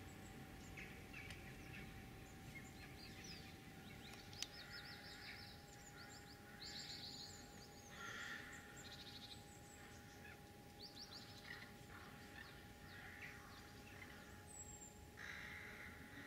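Faint calls of rooks and other birds in the treetops: rough caws mixed with quick, high chirps and stuttering notes, over a faint steady hum. One sharp click about four seconds in.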